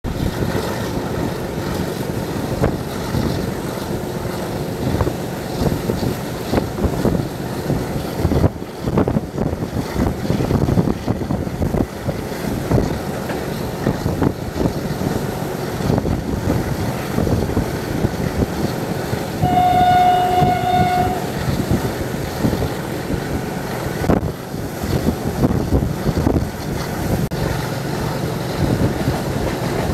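Passenger train running fast, heard from an open coach window: a steady din of wheels clattering over the rails. About two-thirds of the way through, the locomotive's horn sounds once for nearly two seconds.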